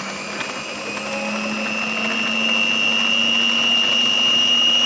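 National Omega stand mixer's electric motor running with a steady whine, growing somewhat louder over the first two seconds.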